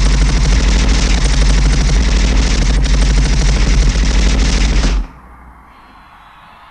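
Staged machine-gun fire played loud over the concert sound system: a rapid, continuous rattle of shots that cuts off suddenly about five seconds in. A faint crowd noise is left behind.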